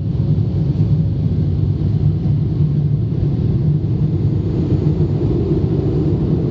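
Cabin noise inside an Avro RJ85 airliner descending to land: a steady low rumble of its Honeywell LF507 turbofans and the airflow past the fuselage, heard through the cabin wall.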